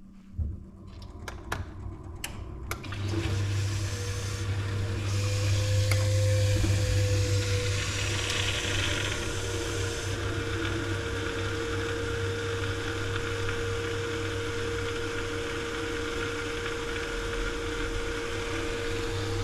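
Baxi Main Eco 30 combi boiler starting up: a few clicks, then about three seconds in the pump and fan start, giving a steady hum and a whine that rises slightly and holds, over a rushing noise of water and burner that is strongest for several seconds. It runs normally after its new plate heat exchanger has been fitted.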